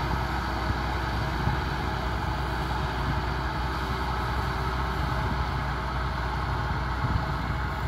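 Kubota tractor's diesel engine running steadily under load while it pulls a tillage implement through dry soil.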